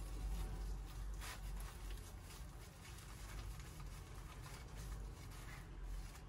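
Soft rustling and crinkling of a dried seaweed sheet being rolled by hand around a glass-noodle filling.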